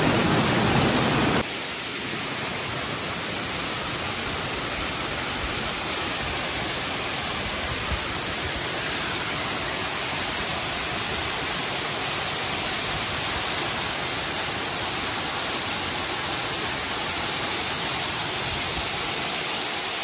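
Steady rush of water from a cascading waterfall falling over rock ledges into a pool. About a second and a half in, the sound drops slightly and loses its low rumble, becoming a steady, hissier rush.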